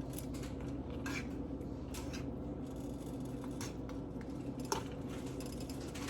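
A cooking utensil tapping and scraping against a pan of chicken on the stove, a few light clicks over a steady background hum.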